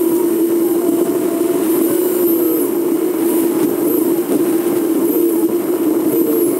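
Steady drone of a vehicle driving: engine and road noise with a strong constant hum. Faint high whistles rise and fall over it now and then.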